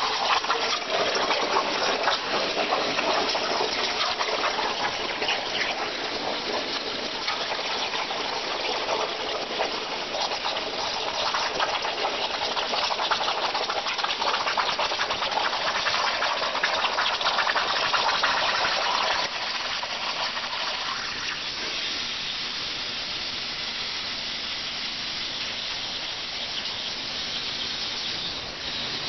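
CNC plasma cutter torch cutting thin .030-inch steel sheet: a loud, steady hiss and crackle of the plasma arc and its compressed air. About two-thirds of the way through it drops to a softer steady hiss.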